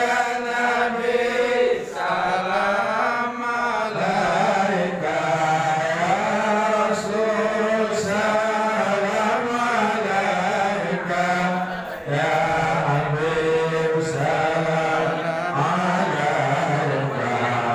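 A group of voices chanting together in unison over a steady low held note, with short breaks between phrases about two and twelve seconds in.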